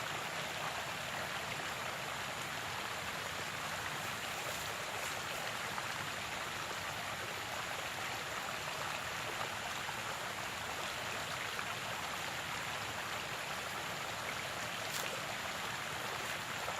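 Flowing stream water, a steady even rush.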